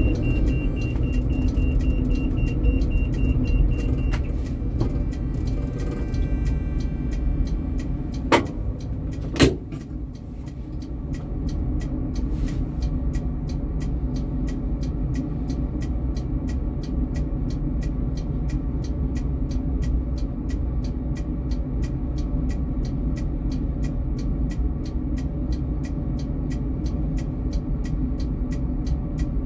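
Helsinki tram running with a steady low rumble. A high whine stops about four seconds in, two sharp knocks come about eight and nine seconds in, and a quick, regular ticking runs through the rest.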